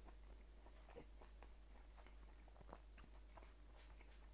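Faint chewing of a mouthful of sous vide cooked beef, picked up close by a lapel microphone, with a few soft mouth clicks.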